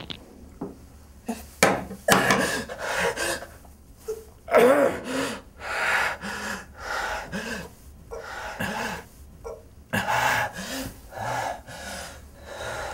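A man gasping, groaning and panting in pain in a string of short, strained outbursts, from a finger he has just cut off with a knife as atonement (yubitsume).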